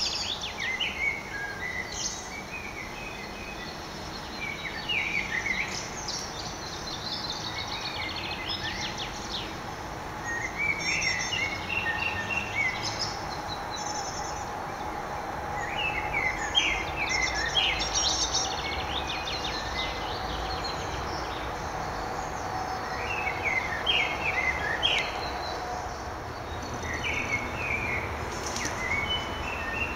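Songbirds singing in short, quick, high-pitched phrases of a second or two, repeated every few seconds, over steady outdoor background noise.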